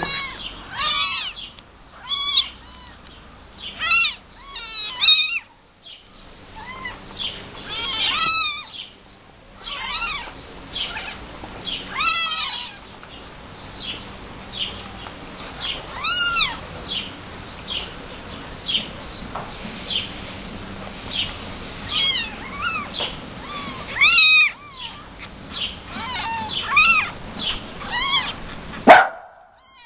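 Very young kittens mewing over and over in short, high, thin cries, a louder call every second or two among fainter ones. A brief loud cry near the end is followed by a sudden break in the sound.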